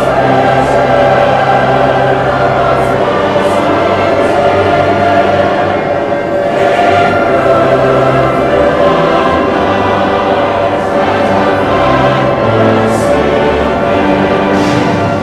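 Choral music: massed voices singing long held chords.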